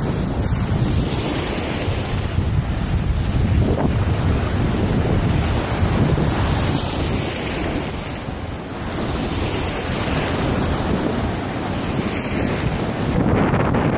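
Ocean surf washing and breaking in the shallows, with wind buffeting the microphone.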